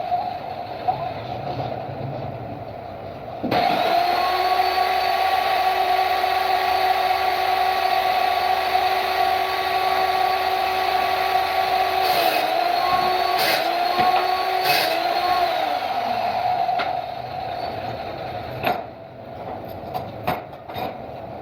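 A woodworking power tool's electric motor starts suddenly about three and a half seconds in and runs with a steady whine. Its pitch dips a few times, then it winds down. A few sharp knocks follow near the end.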